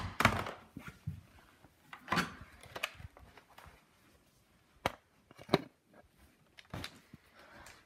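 A string of separate knocks and thumps, about half a dozen over several seconds, with faint shuffling between them.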